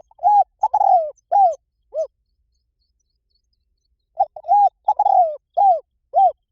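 Spotted dove cooing: two phrases of five or six low, arched coos each, with a pause of about two seconds between them. It is a recorded call used as a lure for wild doves.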